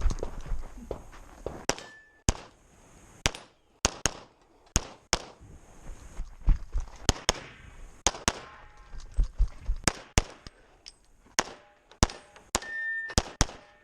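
Competition pistol fire from a 2011 in .40 S&W: about twenty sharp shots in quick strings of two and three, broken by short pauses. A brief ringing tone sounds twice, near the start and near the end.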